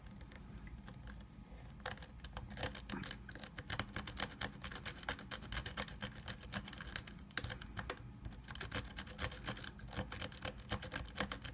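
Rake pick scraping and clicking against the spring-loaded pin tumblers of a Kwikset-style knockoff pin-tumbler lock as it is worked in and out under tension. The clicks come rapid and irregular, sparser for the first couple of seconds and then denser. The raking does not open the lock.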